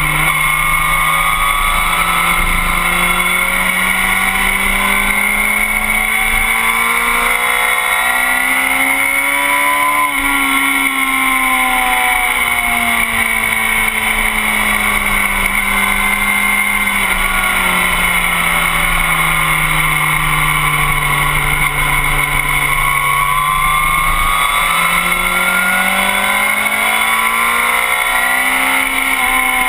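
Motorcycle engine at speed: its pitch climbs smoothly for about ten seconds, sinks slowly, then climbs again near the end, over steady wind rush.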